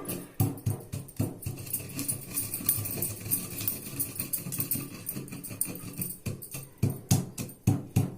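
Pestle pounding dry-roasted whole spices into powder in a mortar: quick repeated knocks, about two to three a second, a little heavier near the end.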